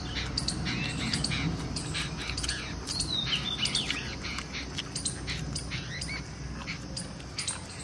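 Small birds chirping, with many short overlapping calls and quick little pitch glides.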